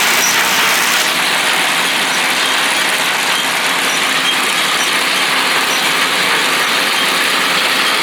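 New Holland round baler running, a steady mechanical rattle with light, regular ticks.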